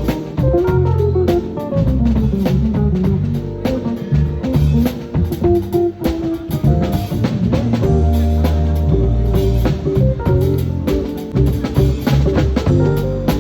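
A live band playing an instrumental passage, with drums and low bass notes under pitched melodic instruments.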